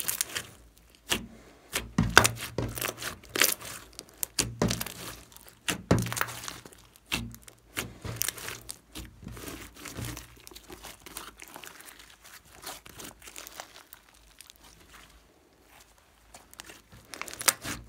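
Hands kneading and squeezing a large mass of slime, giving runs of sticky crackles and pops as it is pressed and folded. The crackling is densest in the first half and thins out later.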